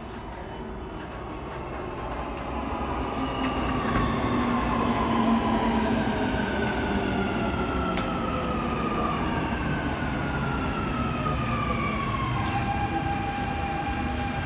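Alstom Dubai Metro train pulling into an elevated station: its rolling rumble grows louder as it approaches, and an electric motor whine falls steadily in pitch as the train slows. Near the end a steady whine holds as it comes to a stop.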